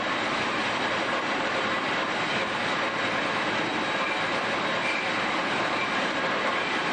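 HEMSAW DC8080 industrial band saw running, its blade cutting through the steel body of a pickup truck: a steady grinding hiss of metal being sawn, with a faint high whine over it.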